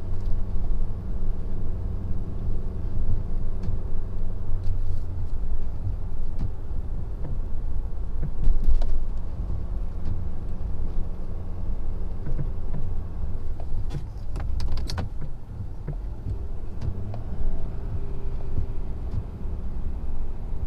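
Ford F-250's 6.7-litre Power Stroke V8 turbodiesel running steadily under load as the truck pushes heavy, wet snow with its V-plow. A few sharp clicks or knocks come about two-thirds of the way through.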